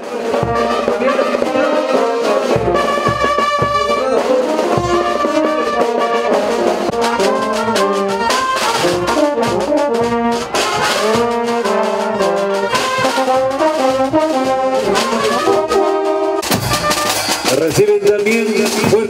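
Brass band playing a march tune for marchers, a melody of stepped notes throughout. About three-quarters of the way through the sound changes abruptly to a fuller, heavier passage.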